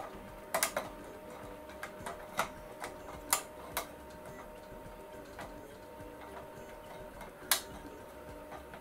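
Several irregular sharp clicks of a fluorescent tube's end pins and caps knocking in the plastic lamp holders as the tube is twisted in its fitting, over a faint steady hum.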